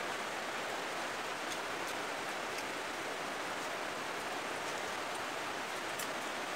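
Steady, even background hiss like rain or a fan, with a few faint clicks.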